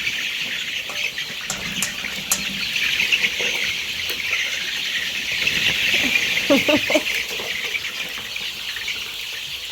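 A flock of four-week-old chickens peeping and chirping continuously, with a short cluster of louder calls about six and a half seconds in.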